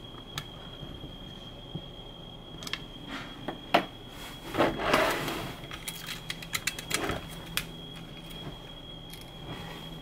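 Small clicks, taps and scraping of parts being handled inside a keyboard case while its controller board is worked on. The loudest click comes nearly four seconds in, a scraping rustle follows, then a quick run of small clicks, over a faint steady high-pitched whine.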